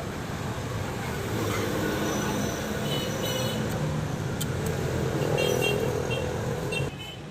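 Toyota 4Runner engine running with a constant misfire, a symptom pinned on a faulty airflow meter. Its sound drops away abruptly near the end.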